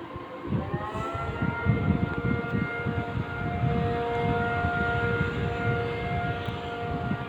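Civil-defence air-raid sirens sounding the Wan An drill alert: several steady tones at different pitches, which glide up and settle about a second in, over a low rumbling background noise.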